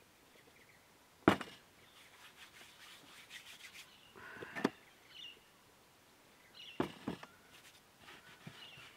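A plastic flour container is set down on a camp table with one sharp knock about a second in. Hands then rub and spread flour over a plastic cutting board with a soft rustling, with a few light knocks on the table.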